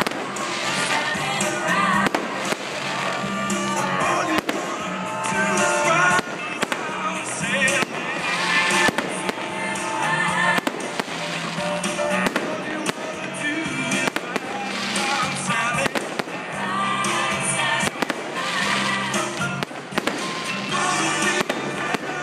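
Fireworks display: aerial shells and cakes bursting in frequent, irregular bangs and pops, with music playing alongside.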